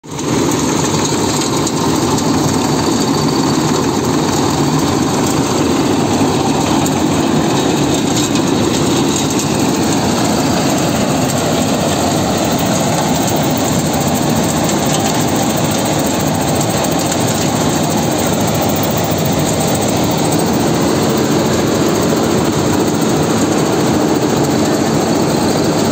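Tractor-driven groundnut (peanut) cleaning machine running: the tractor's diesel engine and the working machine make one loud, steady mechanical noise.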